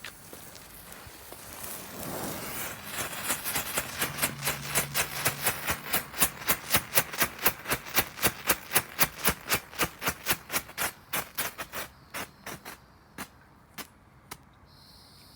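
Mini strobe pot firework going off: a short hiss as it takes light, then a steady run of sharp pops about four a second, thinning to a few scattered pops near the end.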